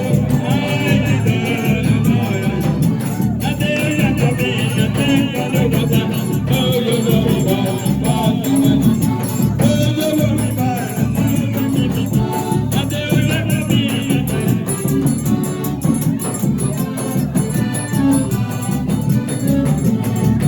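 Forró music with singing over a steady, driving beat.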